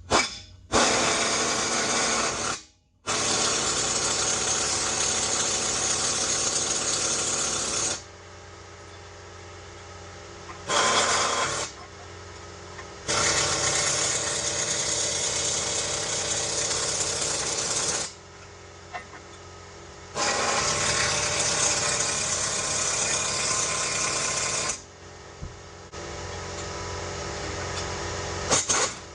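Pneumatic shop tool run in five bursts of one to five seconds each, with a steady low hum in the pauses between them.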